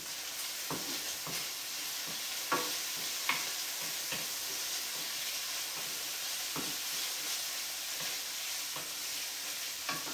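Thick-sliced bacon sizzling steadily in a stainless steel skillet as it renders its fat, with a few sharp clicks of a utensil against the pan as the strips are worked, the loudest about two and a half and three and a half seconds in.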